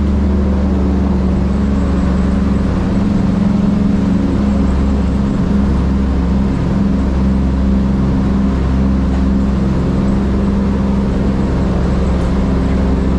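Steady drone of a vintage transport plane's piston engines and propellers, heard inside the bare-metal cabin, holding one even pitch throughout.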